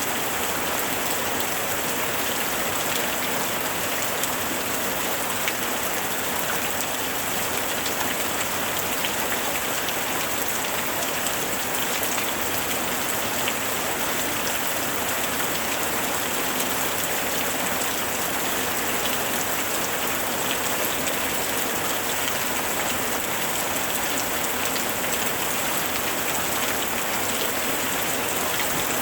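Steady heavy rain, a dense even hiss of drops pattering on a surface, with many small drop ticks.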